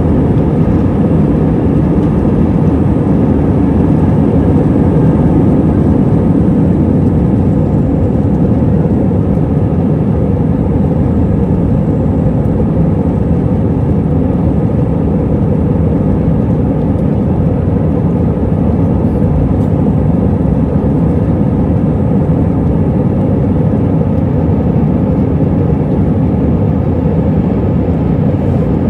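Airbus A320-232's IAE V2500 turbofan engines running at takeoff thrust, heard from inside the cabin behind the wing: a loud, steady roar through the end of the takeoff roll, liftoff and the initial climb.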